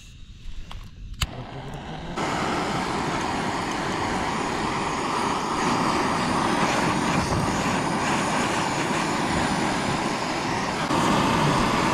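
Handheld butane blow torch jetting a steady hissing flame onto charcoal to light it. The hiss starts about two seconds in, just after a sharp click, and gets louder near the end.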